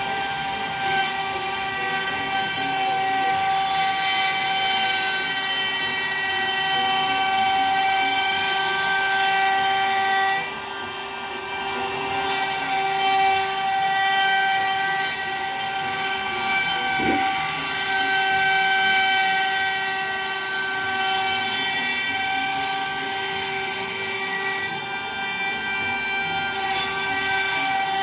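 CNC router spindle running with a steady high whine as its bit mills a circular pocket into a wooden board, with a rougher cutting hiss under it. About ten seconds in the whine dips briefly and the cutting hiss comes forward, then the whine returns.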